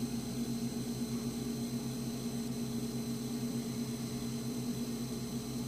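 Dell Precision T7500 workstation's cooling fans running flat out at a steady pitch, a constant hum with a faint high whine. They have been forced to full speed in software to bring down hot CPU temperatures.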